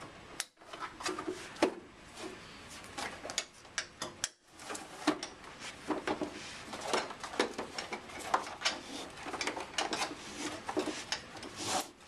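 Handling noises of a plastic infant car seat base being set onto a vehicle seat and its LATCH belt being pulled: many short plastic knocks, clicks and rubbing against the upholstery.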